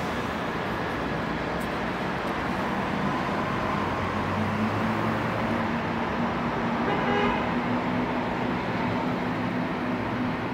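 Distant city traffic hum with a tram running along the street below, heard from high up. About seven seconds in comes a short horn-like toot.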